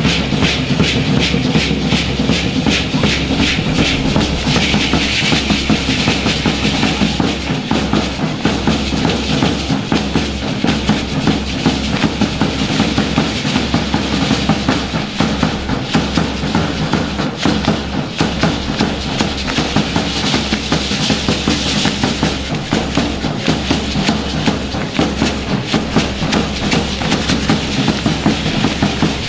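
Traditional danza music: a drum keeping a steady, even beat under a dense, rapid rhythmic clatter from the dancing troupe's rattles and steps.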